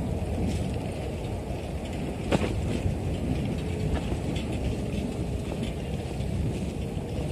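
Wind rumbling over the microphone of a moving bicycle, with tyre and rolling noise. A sharp click comes a little over two seconds in, and a fainter one at about four seconds.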